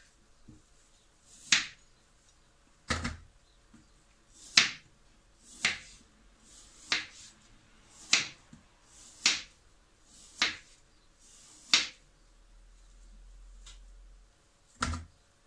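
A kitchen knife chopping a half-frozen block of clown knifefish paste into chunks on a cutting board. There are about ten sharp knocks, roughly one every second or so, some with a dull thud from the board.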